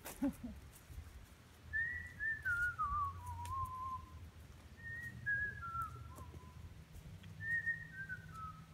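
A person whistling a short falling tune, three times over, each phrase stepping down in pitch from high to lower notes, as a casual 'nothing to see here' whistle.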